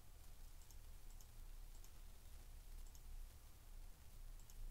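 Several faint computer mouse clicks, spread irregularly through a few seconds, over a low steady hum.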